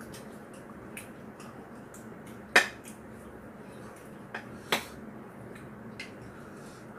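Metal spoon and utensils clinking against bowls during a meal: a sharp clink about two and a half seconds in, two more a little after the middle, and a few light ticks.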